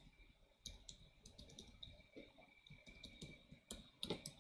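Faint, irregular keystrokes on a computer keyboard, with a quicker run of clicks near the end: a username and password being typed in.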